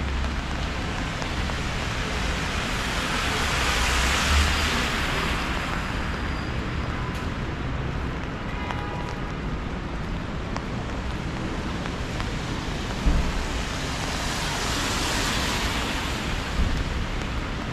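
Car tyres hissing on a wet street, swelling and fading as two cars pass, over steady rain and low wind rumble on the microphone. A single short thump late on.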